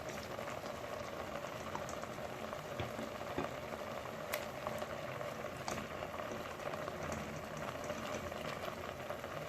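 Pot of fish boiling in seasoned water, a steady bubbling, with a few faint clicks of a utensil against the pot.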